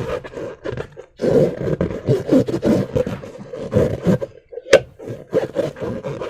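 Slime being squeezed and worked by hand: irregular wet squelching and crackling, with one sharp snap about three-quarters of the way in, the loudest sound.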